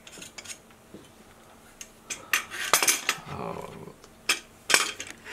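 Light metallic clinks and knocks as a telescope and its metal guidescope rings are picked up and handled, with two sharper knocks near the end.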